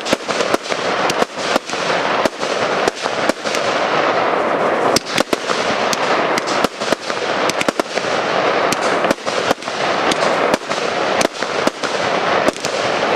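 Aerial fireworks going off in quick succession: many sharp, irregular bangs, often several a second, over a constant crackling hiss from rising stars and bursting effects.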